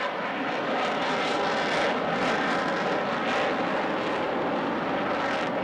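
Twin jet engines of an F/A-18 fighter jet making a loud, steady rush as it climbs past overhead in an airshow display.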